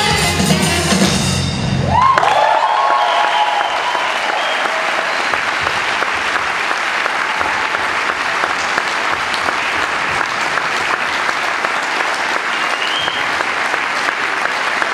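A live band's music, playing with the tap dancers, ends about two seconds in; then an audience applauds steadily, with a whoop and a whistle or two.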